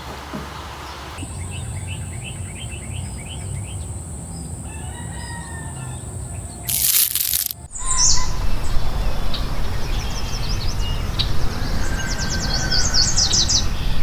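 Outdoor ambience of small birds chirping in quick repeated phrases, with a steady high-pitched whine over the first few seconds and a loud burst of noise lasting about a second, roughly halfway through.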